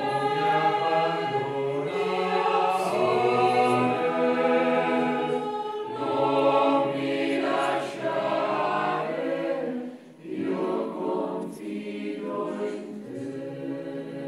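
Choir singing a slow sacred hymn in long held phrases, with short breaks about six, eight and ten seconds in.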